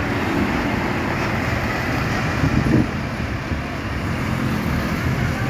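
Road traffic: motor vehicles running past on a road, a steady low rumble with tyre and road hiss.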